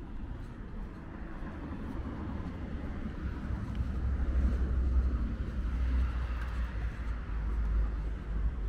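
Road traffic on the adjacent city street: the noise of a passing car swells to a peak about halfway through and again near the end, over a steady low rumble.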